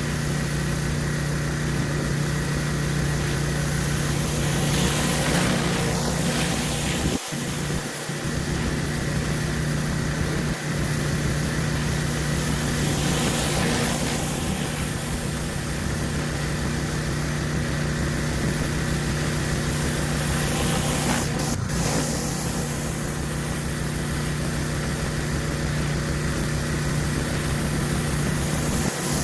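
Gas pressure washer engine running steadily under a dense hiss of high-pressure water from a surface cleaner scouring concrete, the hiss swelling and easing a few times as the cleaner moves.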